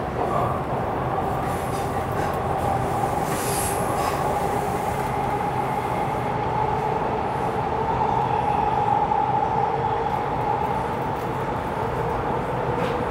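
Toronto subway car running between stations, heard from inside the car: a steady rumble with a high whine held over it that swells a little about two-thirds of the way through.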